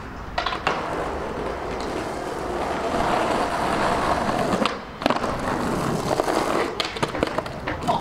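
Skateboard wheels rolling over rough, broken asphalt, getting louder toward the middle, then a brief break and several sharp clacks of the board in the last few seconds.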